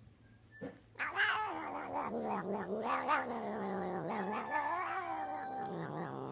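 A domestic cat yowling: one long, drawn-out cry that starts about a second in and wavers up and down in pitch, then stops abruptly near the end.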